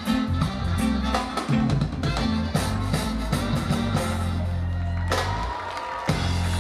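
Live reggae band playing, a trombone out front over bass, drums and guitar; the bass drops out briefly about five seconds in.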